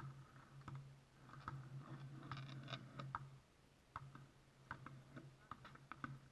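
Near silence: faint, irregular short clicks over a faint low steady hum.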